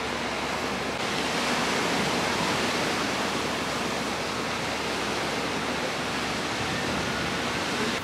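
Steady rushing wash of ocean surf breaking on a rocky reef shoreline.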